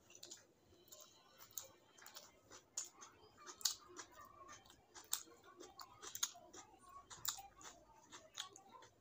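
Eating by hand: fingers mixing rice and curry on a plate and a mouth chewing, giving a run of irregular wet clicks and smacks.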